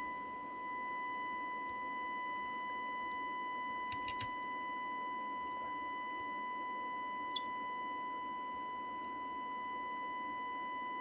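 Steady, pure test tone from a Tram D12 CB radio's receiver, reproducing the test signal while its IF transformer T4 is tuned for maximum output. Low room hum lies under it, with a couple of faint clicks.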